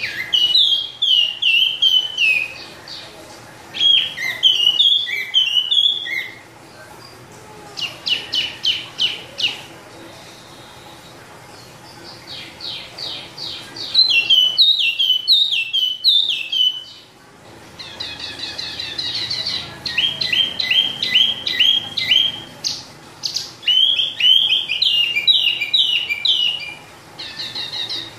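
A caged wambi songbird singing in long rolling runs: phrases of rapid, ringing notes repeated in quick series, with brief pauses between phrases.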